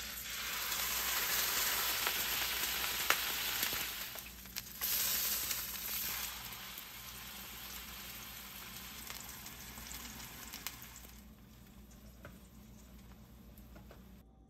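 Shrimp and zucchini stir-fry sizzling in a hot oiled frying pan. The sizzle starts suddenly as the food goes in and flares again about five seconds in, with a few clicks of a utensil against the pan, then gradually settles to a quieter sizzle.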